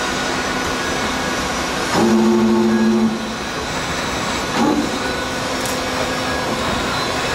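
CNC forming spring machine running with steady mechanical noise. About two seconds in, a louder two-tone motor hum starts sharply and lasts about a second. A short knock follows a little later.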